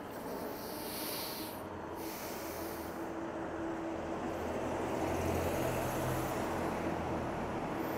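Street traffic heard from a moving electric bike: an even rush of wind and road noise with a steady hum. A low engine rumble grows louder in the second half as a double-decker bus passes.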